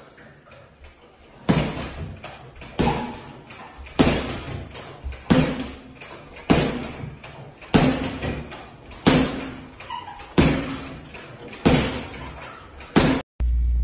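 Boxing gloves striking a hanging heavy punching bag: about ten hard thuds at a steady pace, roughly one every second and a quarter, each echoing briefly in the room.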